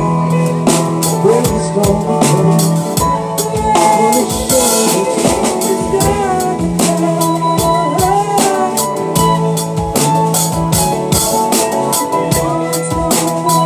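Live rock band playing an instrumental stretch of a song: a drum kit keeps a steady beat under bass and guitar, with a lead line bending notes.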